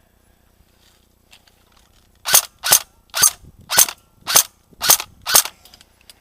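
Airsoft gun firing seven shots, about two a second, each a short sharp pop.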